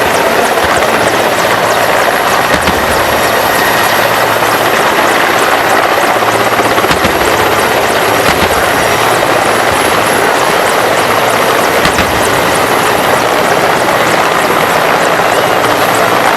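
Mil Mi-17 helicopter running loud and steady, its rotor and turbine noise continuous throughout.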